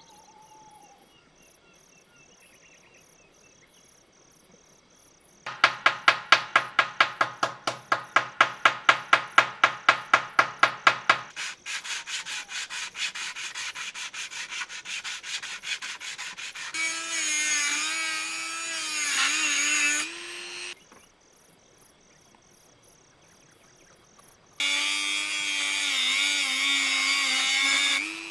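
Sandpaper rubbing by hand on a part, first in quick back-and-forth strokes (about four a second) and then in steady continuous rubbing. Then a small handheld rotary tool with a cut-off disc runs in two spells, whining with a wavering pitch as it cuts through a thin metal rod.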